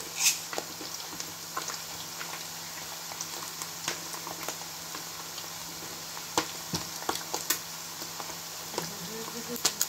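Chicken pieces frying in oil in a pan on a high flame: a steady sizzle with scattered sharp crackles and clicks.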